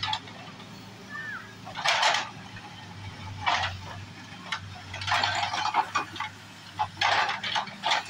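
Case backhoe loader's diesel engine running steadily while its rear bucket scrapes and drags loose soil, giving four or five rasping bursts about a second and a half apart.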